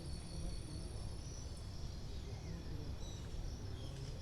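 Insects chirping in a steady high trill over a low background rumble.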